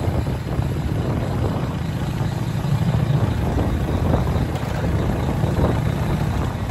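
Motorcycle engine and exhaust running steadily with a low, even drone, loud because the muffler is worn and needs replacing.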